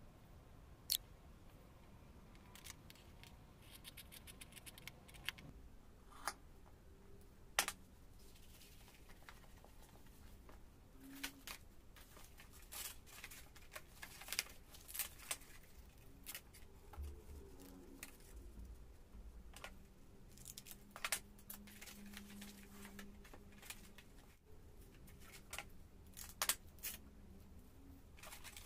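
Tabletop handling sounds: scattered sharp clicks and taps as a ruler, pen, leather strips and reels of hook-and-loop tape are picked up and set down. Between them are snips of tailor's shears and a quick run of fine ticks a few seconds in.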